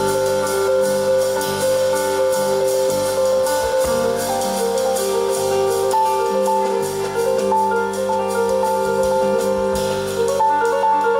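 Jazz piano trio playing live: piano chords and melody over bass, with drums keeping time on the cymbals.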